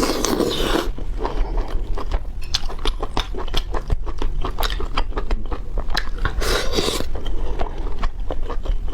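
Close-miked eating of chicken: wet chewing clicks and smacks throughout, with louder crunching bites at the start and about six and a half seconds in.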